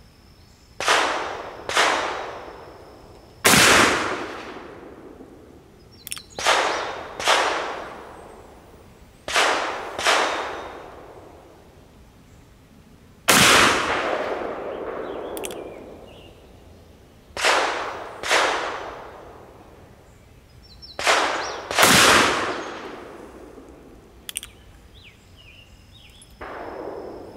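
Black-powder gunshots from an original Colt 1860 Army cap-and-ball revolver, fired one at a time a few seconds apart as it is function-tested with Remington No. 10 caps. About a dozen sharp reports in all, some in pairs about a second apart, each with a ringing tail; three heavier ones come about 3.5, 13 and 22 seconds in.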